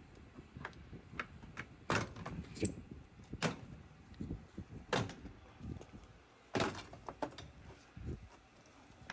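Lower front panel of a Toyota Tacoma being pulled off: a series of sharp clicks and knocks as its retaining clips let go and the panel knocks against the truck, the loudest about five and six and a half seconds in.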